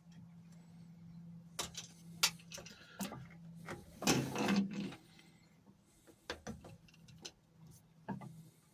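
Hand work on engine fuel hoses and hose clips: scattered sharp clicks and knocks of tools and metal clips, with a longer scraping rustle about four seconds in, over a steady low hum.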